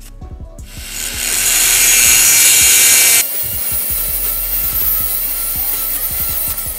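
Drill bit grinding into the rivet post of a die-cast metal truck's base plate, drilling the rivet out to take the model apart. A loud, coarse grinding noise builds over the first second, breaks off sharply about three seconds in, then carries on a little quieter with a faint whine until near the end.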